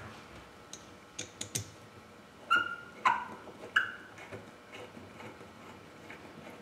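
Steel bolts and a hand hex driver clinking against an aluminum mold plate: a few light ticks, then three sharp ringing clinks about half a second apart near the middle, followed by softer taps as the bolts are turned in.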